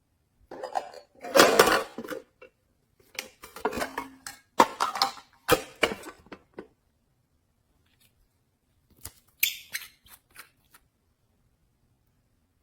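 Slime being squished and mixed, with sticky crackling and clicking in three bursts and silence between.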